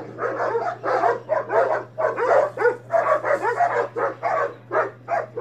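Several dogs, among them a German shepherd, barking at each other in rapid overlapping volleys, several barks a second, over a steady low hum.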